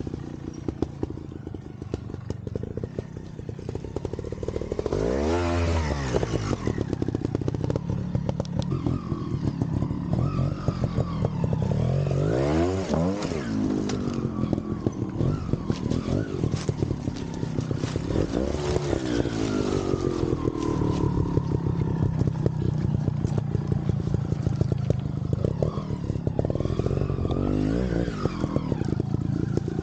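Vintage trials motorcycle engine running at low revs, blipped up and back down in short bursts several times.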